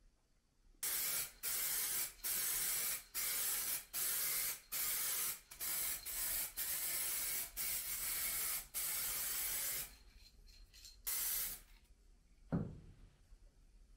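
Aerosol spray can hissing in a series of about a dozen short bursts with brief gaps, then one more burst after a pause. Near the end, a single thump.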